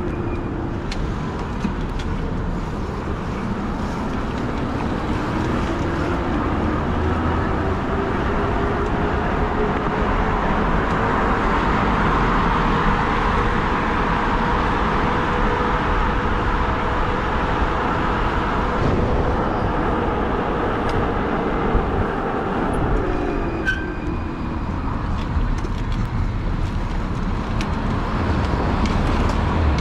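Road noise while riding a fat-tire e-bike in traffic: a steady rush of tyres and passing cars that swells through the middle and eases off later, with a faint whine rising and falling in pitch.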